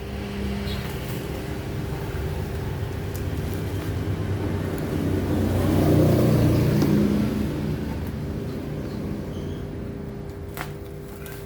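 A motor vehicle passing by, its low rumble swelling to a peak about six seconds in and then fading away.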